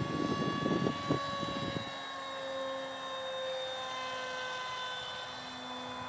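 Electric motor and propeller of a radio-controlled model jet in flight, a steady whine that sags slightly in pitch. Wind buffets the microphone in the first two seconds.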